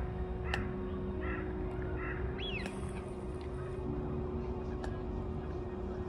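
Ducks quacking several short times in the first two seconds, then a single rising-and-falling call a little later, over a steady low drone.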